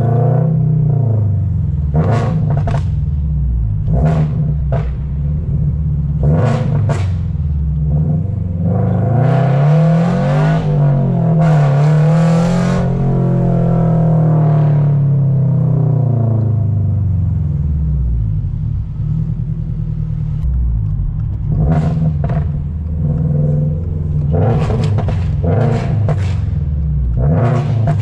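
Straight-piped 2023 Toyota GR86's 2.4-litre flat-four engine and exhaust heard from inside the cabin while driving: a loud low drone, with short sharp blips of exhaust rasp now and then. About ten seconds in, the revs climb under acceleration and then fall away.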